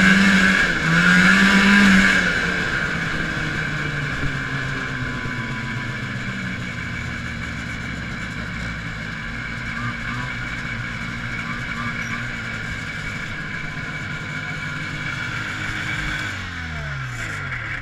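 A 1980 Arctic Cat Panther 440 snowmobile's fan-cooled two-stroke engine under throttle. It revs loudly, rising and falling in pitch, for the first couple of seconds, then holds a steadier cruising note, and near the end winds down in pitch as the sled slows.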